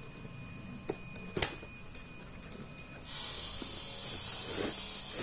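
Cardboard toy box being handled, with two light knocks about one and one and a half seconds in. From about three seconds in, a steady hiss sets in suddenly and holds.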